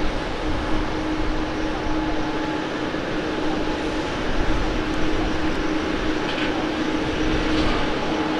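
Boeing 737-800's CFM56-7 turbofan engines running on final approach and touchdown: a steady jet roar with a constant low hum through it.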